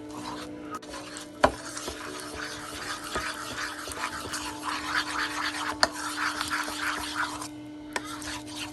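Icing-sugar glaze being stirred in a bowl: quick rasping scrapes of a utensil against the bowl, with a sharp knock about a second and a half in and another near six seconds. A steady low hum runs underneath.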